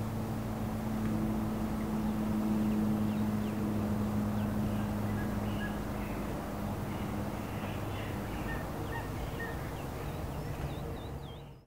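Room ambience: a steady low hum under a faint hiss, with faint bird chirps now and then, more of them near the end. The sound cuts off suddenly at the very end.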